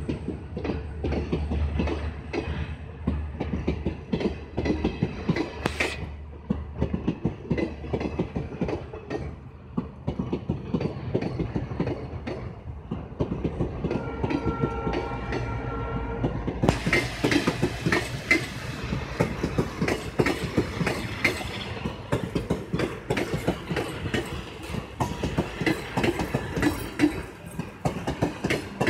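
Indian Railways parcel train of NMG wagons rolling past at close range: wheels clattering rapidly over rail joints over a steady rumble. The clatter gets louder and sharper a little past halfway.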